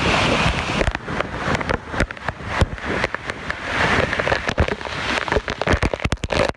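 Waterfall water pounding directly on or right beside the microphone: a dense, crackling spatter with many irregular sharp pops.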